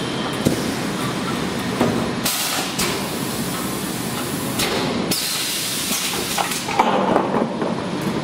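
Semi-automatic PET bottle blow moulding machine working: two short hissing blasts of compressed air about two seconds in and near the middle, with scattered metal clanks and knocks from the mould and preform handling.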